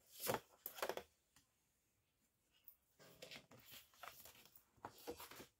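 Paper rustling as a loose printed sheet and a paperback colouring book are handled: two brisk rustles in the first second, a short pause, then softer, irregular handling rustles.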